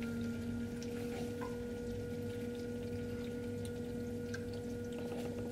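Aquarium DC Runner return pump humming steadily in the sump, just switched back on and coming up slowly on its soft start, with faint drips and trickling water.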